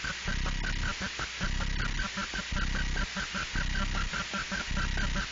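Harsh noise music: a fast, regular pulsing loop, about five or six pulses a second, over heavy distorted rumble and hiss.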